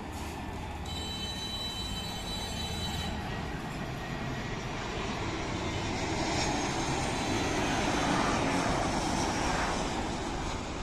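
Jet engines of an Air Arabia Airbus A320 on final approach, a rushing drone that swells as the airliner comes in low past the runway fence to land, peaking late and starting to fade near the end.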